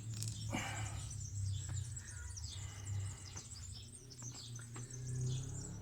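Small birds chirping over and over, with a steady low hum beneath and a few light clicks.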